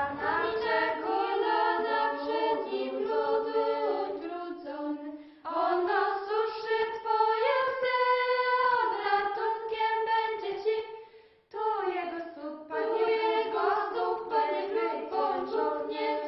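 A choir singing a cappella in slow, held phrases, with two short breaks between phrases, about five and eleven seconds in.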